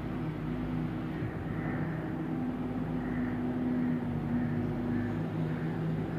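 Doosan DX140 excavator's diesel engine running steadily under working load as the boom lifts and swings a bucket of soil, with a faint higher hydraulic whine in the middle.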